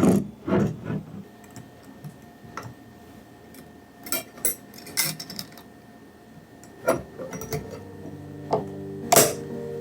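Light clinks and knocks of dishes and utensils being handled, about ten separate strikes. Soft music with held notes comes in near the end.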